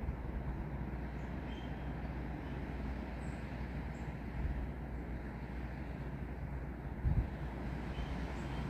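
Steady wind and rain in trees, an even rushing noise with a heavy low rumble from the wind, swelling briefly about seven seconds in. A few faint high chirps sound over it.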